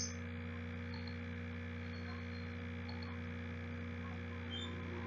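Steady electrical mains hum, a low buzz with a stack of overtones, with one short click right at the start.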